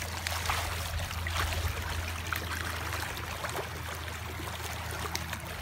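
Shallow water running steadily along a street gutter, with occasional small splashes as a child sits and kicks in the flow.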